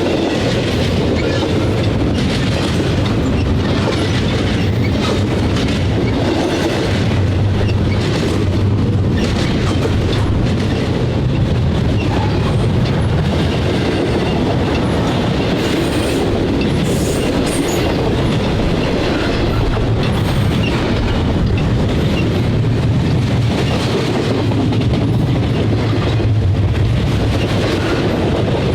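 Freight train rolling past at close range: a steady rumble of railcars with wheels clicking over rail joints.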